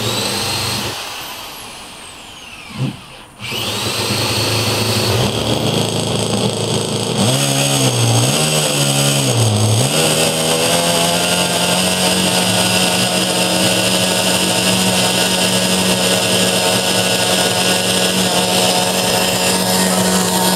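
K&B 82 two-stroke glow engine driving a Turbax III ducted fan with a cut-down 9-blade Ramtec rotor. The fan spins up with a rising whine that fades away, spins up again about three seconds in and keeps going; its speed swings up and down a few times, then from about ten seconds it runs steadily at high speed.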